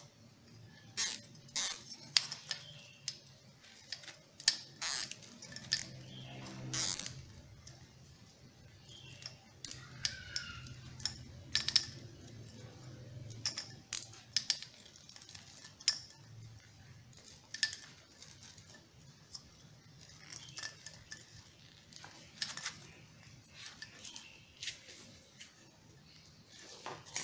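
Irregular sharp clicks and light knocks of small plastic parts being handled: a nylon cable tie pulled tight around a rubber water hose on a scuba BCD inflator, and the inflator head knocking as it is turned. The clicks come thickest in the first several seconds, then thin out.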